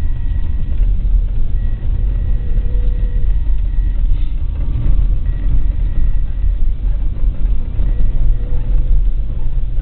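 Car engine and tyre noise heard from inside the cabin as the car climbs a hill, a steady low rumble.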